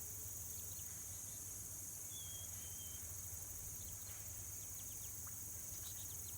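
Faint outdoor ambience by a pond: a steady high insect drone, with two short high chirps a little after two seconds in.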